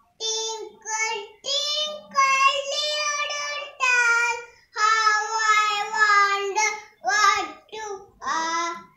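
A young boy singing solo and unaccompanied, in phrases of held notes with short breaks between them.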